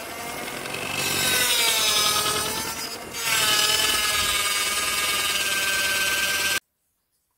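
Electric hand mixer running, its beaters whisking egg yolks and powdered sugar in a stainless steel bowl. The motor's whine dips in pitch and loudness twice, then cuts off suddenly near the end.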